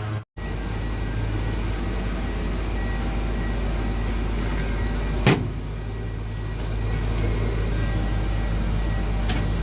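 Large diesel generator engine running with a steady low drone. A sharp click comes about five seconds in and a fainter one near the end.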